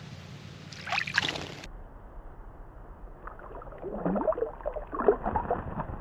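Birdbath water splashing as a forest kingfisher dives in: a short splash about a second in, then a longer, lower-pitched churning of water from about three seconds in.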